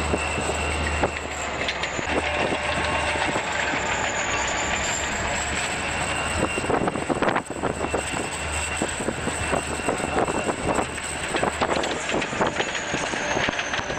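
Wedge snow plow pushed by a diesel locomotive running through snow drifts: a steady rushing noise of plowed snow and train with a low hum and scattered clatter from the wheels, with a brief dip about halfway through.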